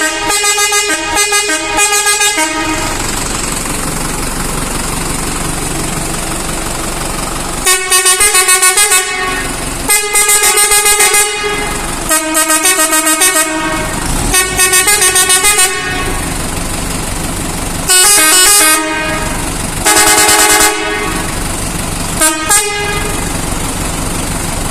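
Four-trumpet air horn sounding in bursts: rapid stuttering runs of notes that step between pitches, two longer steady blasts later on, and a couple of short toots near the end. A steady noise fills the gaps between bursts.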